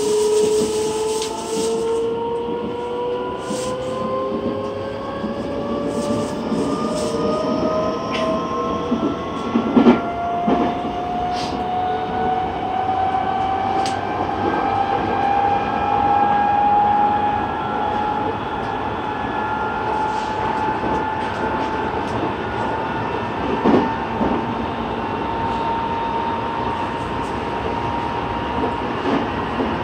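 Running sound inside a Nagoya Municipal Subway N3000-series electric train car: the traction motors' whine climbs steadily in pitch as the train gathers speed, over wheel-on-rail rumble. Two sharp knocks from the track come about a third of the way in and again past two-thirds.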